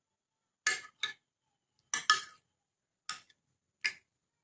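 Metal spoon clinking against a glass baking dish while chicken pieces are turned in a thick marinade: about six short, sharp clinks at uneven intervals.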